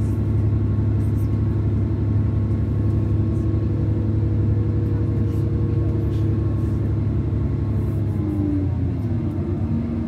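Cabin sound of a DB Class 612 diesel multiple unit under way: its underfloor diesel engine and running gear give a steady low drone, with a few faint clicks from the track. About eight seconds in, the engine's note slides down in pitch.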